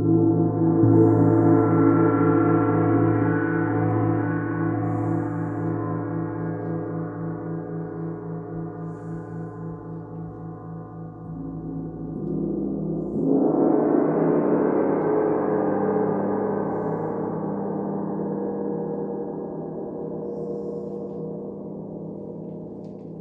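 Tibetan singing bowls ringing, several steady overlapping tones that waver and pulse as they slowly fade. About 13 seconds in, another bowl swells up loudly and then rings on, decaying.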